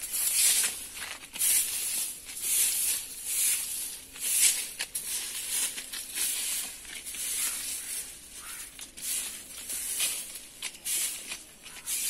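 Stiff coconut-leaf-rib broom sweeping dry leaves and twigs across a dirt path: repeated scratchy swishes, roughly one a second, some stronger than others.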